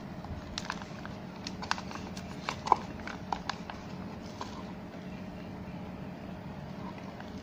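Plastic packaging of a honeycomb crinkling and clicking as it is handled: a scatter of sharp clicks and crackles in the first half, the loudest just under three seconds in, over a steady low hum.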